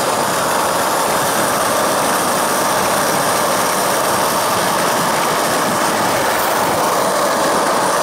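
Steel ball-bearing wheels of a homemade wooden cart rolling on asphalt: a steady, loud rolling rattle that does not let up.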